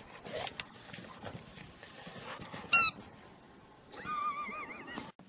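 A dog's rubber squeaky toy ball squeaks sharply once, then gives a longer wavering squeal as it is squeezed, over the soft rustle of the dog moving through snow.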